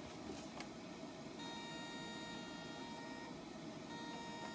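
Faint, steady high electric whine from the LEGO train's two motors. It starts about a second and a half in, breaks off briefly a little past three seconds, then starts again.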